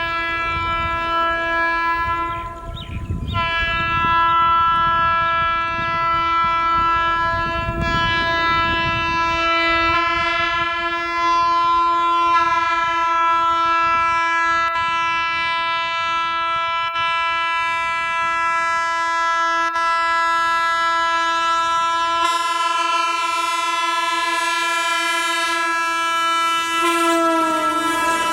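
Horns of Indian electric locomotives, a WAG-12 and a WAP-7, blowing continuously in long held blasts over the rumble of a train running past. About two-thirds of the way through the rumble drops and another horn tone joins, and near the end the horn's pitch falls as it passes.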